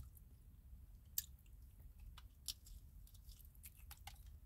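Faint chewing: a scattering of soft, wet mouth clicks, the clearest about a second in and again near the middle.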